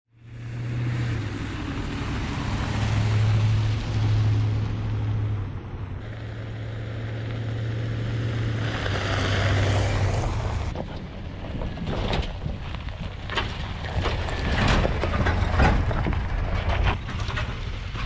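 Chevrolet Z71 pickup truck driving on a gravel dirt road: a steady engine drone with tyre and wind noise. About ten seconds in it gives way to crackling gravel and stones knocking under the tyres over a low rumble.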